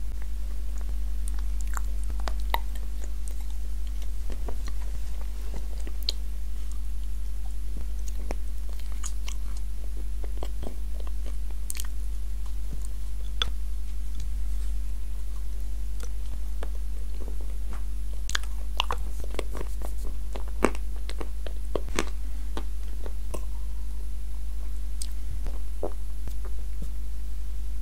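Close-miked biting and chewing of a cookie dipped in nut cream, with scattered crunches and wet mouth clicks. A steady low hum runs underneath.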